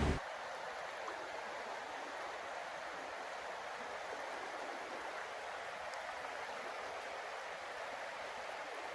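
Steady rushing of running water, like a woodland stream, an even hiss-like noise without pauses.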